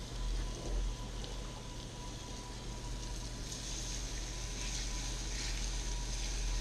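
Speckled sea trout fillets sizzling as they go into a hot cast-iron skillet, a steady hiss that grows louder over the second half.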